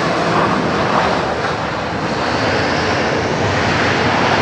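Twin turbofan jet engines of an Airbus A320 airliner rolling along the runway: a loud, steady roar that swells slightly about half a second in.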